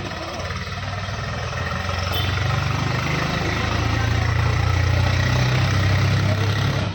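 Electric fan motor running with a steady low hum and the rush of air, getting louder about two seconds in.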